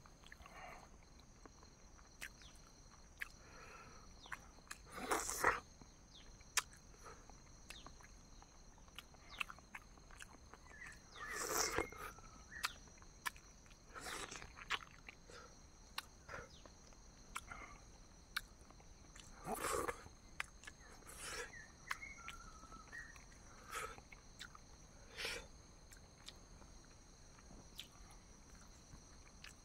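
Close-up mukbang eating sounds: boiled eggs with chutney being chewed, with many small mouth clicks and smacks and a louder breathy or slurping burst every few seconds. A faint steady high tone runs underneath.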